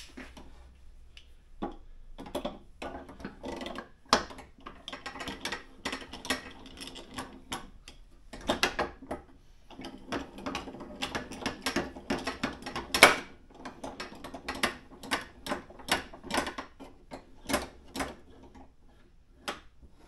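Clamp fittings being slid, set and adjusted on galvanized steel strut-channel clamp bars: a run of irregular clicks, knocks and rattles, loudest about two-thirds of the way through.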